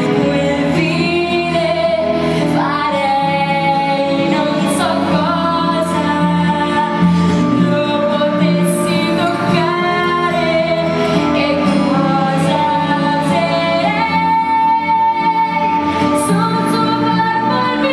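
A woman singing a musical-theatre ballad with instrumental accompaniment, holding long notes with vibrato.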